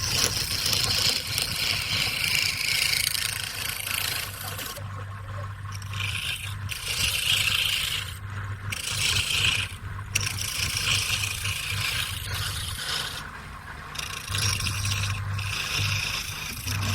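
Wood lathe running with a steady low hum while a turning tool scrapes and cuts the spinning wood in several passes, each a second or few long, broken by short pauses.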